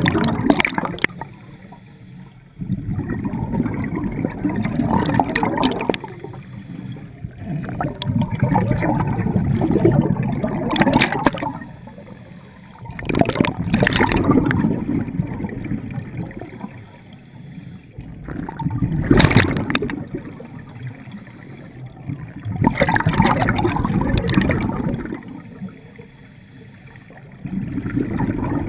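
Scuba diver breathing through a regulator underwater: a short hiss on each inhale, then a long stretch of exhaust bubbles bubbling on the exhale, repeating about every five seconds.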